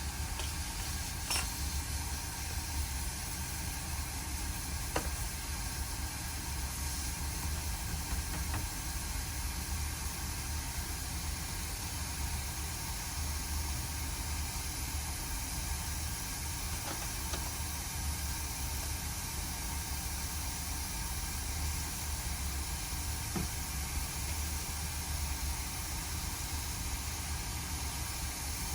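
Hot air rework station blowing a steady hiss of air, with a low hum beneath it and a few faint clicks.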